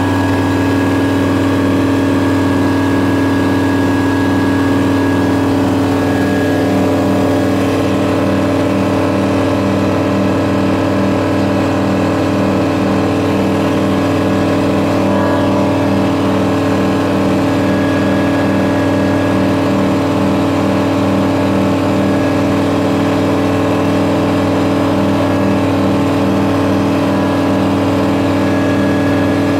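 Flight Design CTSW microlight's Rotax 912 flat-four engine and propeller at full power for take-off and climb-out, heard from inside the cockpit. It is a loud, steady drone with a slow throb about twice a second.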